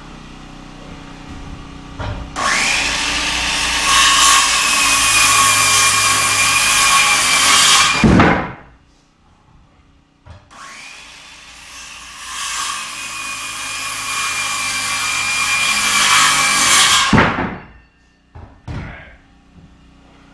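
Power saw cutting lumber twice: the motor whines up, runs through a cut of about six seconds, then winds down as the blade spins down, with a pause between the two cuts.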